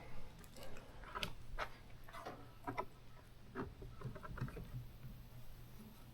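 Faint, irregular light knocks and clicks over a steady low hum.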